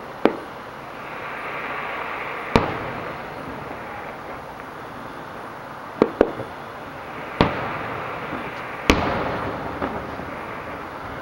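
Aerial fireworks shells bursting: about seven sharp bangs at irregular intervals, including two close pairs, each trailing off in a short rumble, over a steady hiss.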